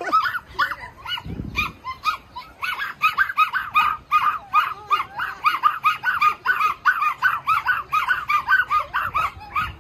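Small dogs yapping rapidly and without let-up, short high-pitched barks about four or five a second, with a short lull about a second in.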